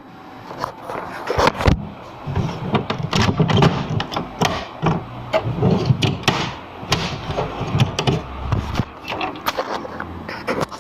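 Toner cartridge being pushed into a Samsung ML-1610 laser printer: many plastic knocks and clicks with scraping in between as it slides in and is pressed into place.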